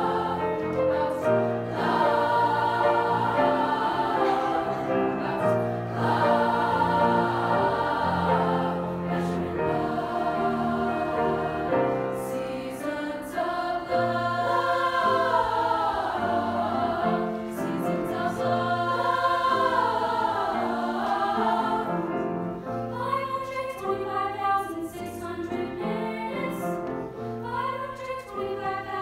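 Girls' choir singing in harmony, many voices holding and moving between sustained notes. A little past twenty seconds in the singing grows quieter and thinner.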